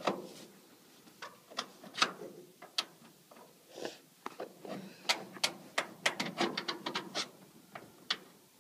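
Irregular sharp clicks and knocks from the metal wing-root fittings of a Kitfox light aircraft as a folded wing is worked by hand into place for its pin, with a quick run of clicks about five to seven seconds in.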